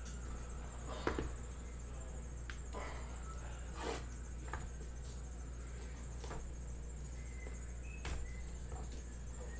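Sealed cardboard hobby boxes handled on a table: a few short soft knocks and scrapes as they are set down and slid, then fingers picking at the plastic shrink wrap with brief faint squeaks near the end, over a steady low hum and a thin high-pitched whine.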